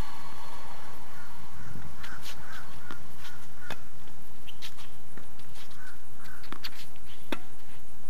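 Tennis ball being struck by rackets and bouncing on a hard court during a rally: a series of sharp pops, several a second apart, the loudest about a third of the way in and near the end.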